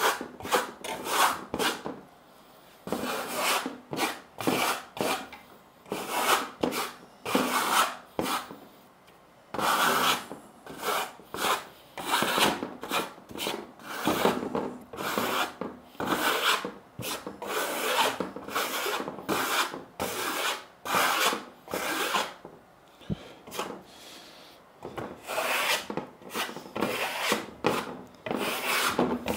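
A plastering trowel scraping Venetian plaster across a thin wooden sample board. It comes in runs of quick rubbing strokes, about two a second, broken by a few short pauses.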